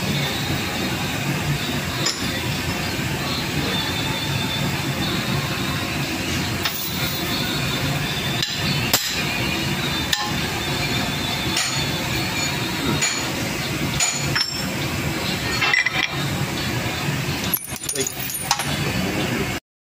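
Scattered sharp metal clinks and knocks as a square steel block is handled and clamped into a lathe's four-jaw chuck, over a steady workshop hum. The sound cuts off abruptly just before the end.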